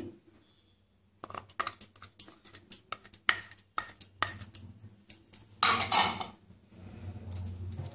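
Metal spoon scraping and tapping against a small glass bowl as turmeric powder is spooned out onto curd, making a quick run of light clinks, with a louder, longer scrape about six seconds in.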